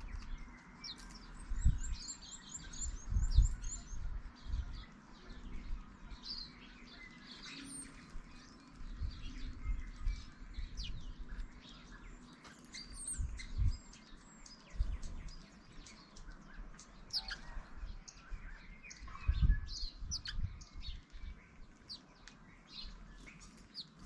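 Small garden birds chirping and calling in many short, high notes, with a quick run of high notes about two seconds in. Irregular low thumps come and go underneath.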